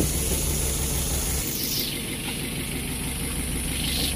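Daihatsu Gran Max four-cylinder petrol engine idling steadily while misfiring on cylinder 4, whose ignition coil has failed, which makes the engine shake.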